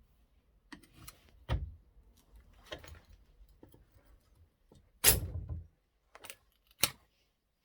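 Scattered knocks and clicks from opening and handling the clamp of a magnet-fishing magnet, with the loudest clunk, briefly ringing, about five seconds in.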